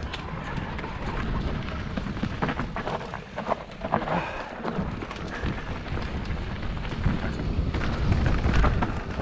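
Mountain bike riding fast down a dirt forest trail: tyres rumbling over dirt and roots, with frequent short rattles and knocks from the bike, over a low rumble of wind on the microphone.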